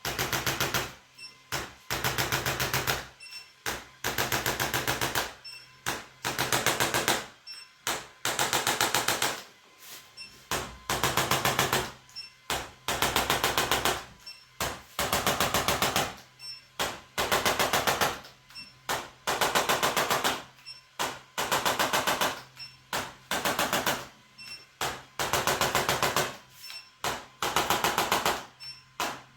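Handheld electric percussion tool hammering rapidly against the body in bursts of about a second, one after another with short gaps, each burst a fast machine-like rattle of taps over a motor hum.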